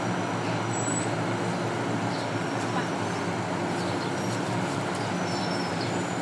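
A steady mechanical hum with a constant rushing noise, unchanging throughout.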